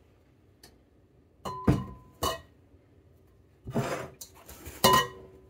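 A stainless steel stand-mixer bowl with its dough hook, handled on a countertop, clanking several times, each knock followed by a short metallic ring.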